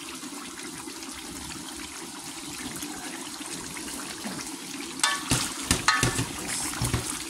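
Brown stew pork boiling hard in a pot: a steady bubbling of the sauce, with a few sharper, louder knocks and pops from about five seconds in.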